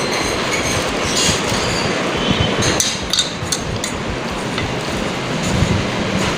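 Steady rushing background noise with a few light clicks and clinks in the first half.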